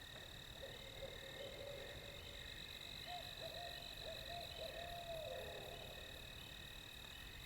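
A distant barred owl calling, a run of wavering hoots that ends in a long downward slur, over a steady chorus of night insects.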